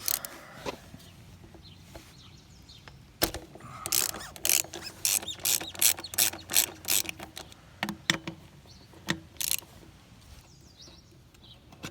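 Ratchet wrench with a T45 Torx bit on an extension, its pawl clicking in quick bursts of about three clicks a second as a bolt is backed out. A single sharp crack about three seconds in, and a few more clicks near the end.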